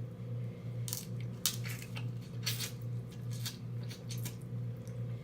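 Eating sounds from a seafood boil of crab legs: a run of short cracks, clicks and wet smacks, several in quick succession from about a second in, over a steady low hum.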